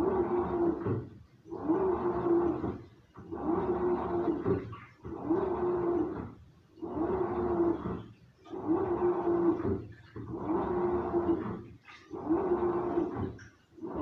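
Samsung washing machine agitating a load: the drum motor hums and the water sloshes in regular pulses about every second and a half, with a short pause between each stroke as the drum reverses.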